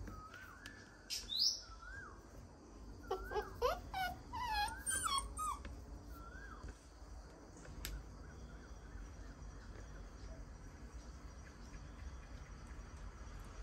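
Puppies whining and yelping: a few short whines, a high squeal just over a second in, and a quick run of yelps and squeals from about three to five and a half seconds, after which only a low background rumble remains.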